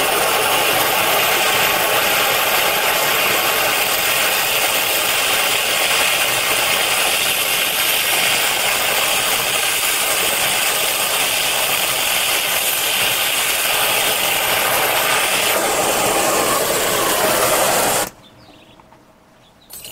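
Oxy-acetylene torch flame hissing steadily while it heats copper. The hiss stops abruptly near the end.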